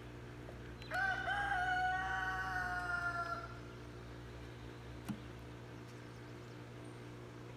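A rooster crowing once, starting about a second in: a long call of about two and a half seconds that rises at the start, then holds its pitch and trails off. A light knock follows a couple of seconds later.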